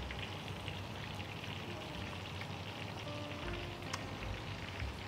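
Hot oil in a wide pan on the stove sizzling faintly and steadily, with a couple of faint clicks of a utensil in a glass bowl.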